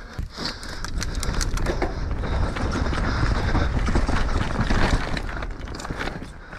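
Orbea Rallon enduro mountain bike descending a rough, rocky trail at speed, heard from an onboard camera: tyres crunching over dirt and stones, with rapid rattles and knocks from the bike. Wind rumble on the microphone builds from about a second in and eases near the end.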